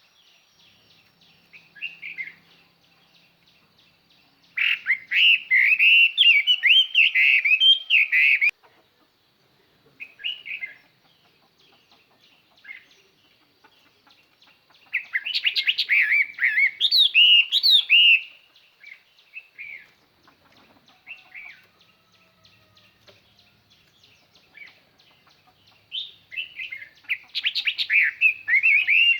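Chinese hwamei singing in bouts of quick, varied whistled phrases: three long stretches of song of several seconds each, with a few short phrases in the pauses. It is a decoy bird's song, sung to call in wild hwameis.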